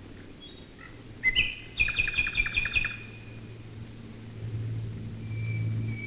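Common nightingale singing: a short chirp, then a fast run of repeated notes, about seven a second, and a long steady whistled note near the end. Beneath the song runs a low steady drone of bomber engines overhead, swelling near the end.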